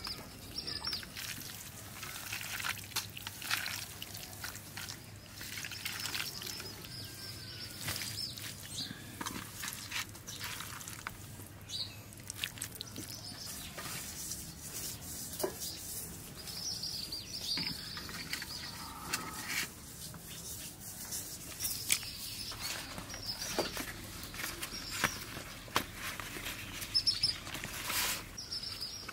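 Small birds chirping in short calls at intervals, over frequent clicks and rustles from hands working marinated chicken pieces in a steel plate and handling banana leaves.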